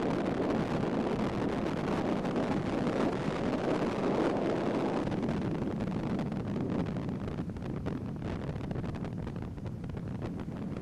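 Wind buffeting the camcorder's microphone: a steady rushing noise that eases a little in the second half.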